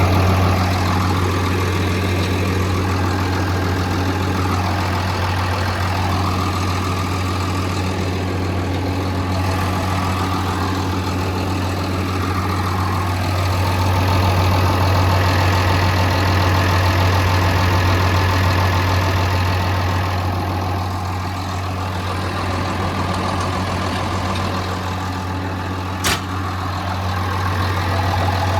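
Komatsu D65EX-18 bulldozer's six-cylinder diesel engine idling steadily, heard close up, with a single sharp click near the end.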